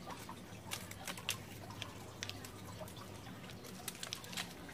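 Hand pruning shears snipping old, dry fern fronds: a string of faint, sharp clicks and light rustling.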